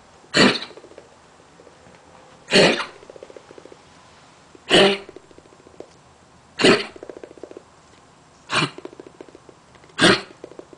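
Dog coughing in a fit: six sharp, hacking coughs about two seconds apart, each trailing off in a short rasping rattle. The owners later learned the cough came from lung cancer.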